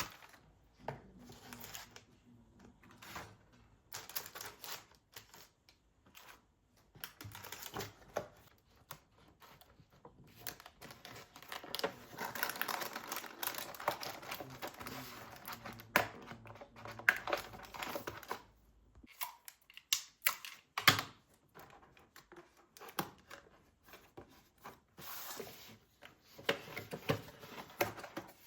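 Irregular clicks, taps and rustling of objects being handled, with a busier stretch of rustling about halfway through.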